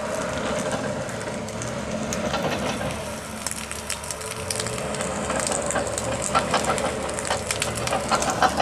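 Brush fire crackling, with scattered sharp crackles that grow more frequent in the last few seconds, over an engine running steadily in the background.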